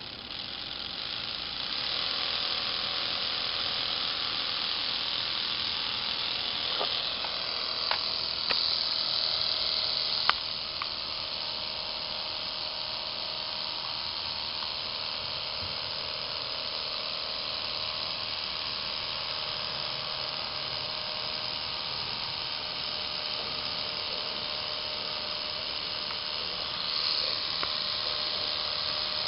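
Lego Power Functions electric motors and plastic gear trains whirring as a Lego pulling tractor drags a weighted pulling sled. The whir builds over the first two seconds and then runs steadily, with a few sharp clicks about eight to ten seconds in.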